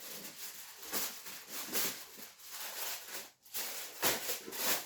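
Aluminium foil being handled, crinkling and rustling in irregular bursts as it is pulled out and worked around a joint of meat.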